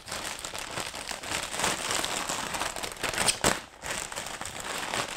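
Plastic mailer bag crinkling and crackling as it is slit open with a utility knife and handled, a dense run of small crackles with a short lull a little past halfway.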